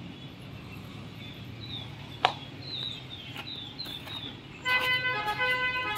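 Birds chirping over a low background hum, with one sharp click a little over two seconds in. Near the end a loud vehicle horn starts and sounds steadily.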